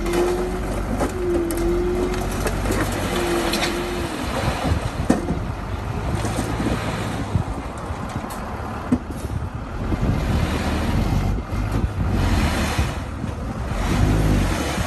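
Heavy earthmoving machinery running steadily, its diesel engine loud and low, with scattered clanks and knocks of the machine working dirt. A wavering whine comes and goes three times in the first few seconds.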